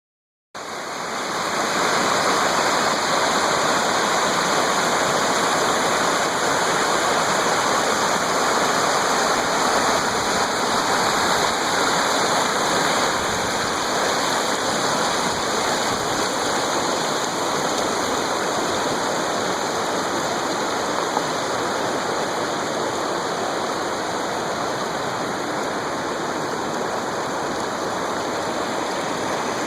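Waterfall: a steady rush of falling water, starting suddenly just after the beginning.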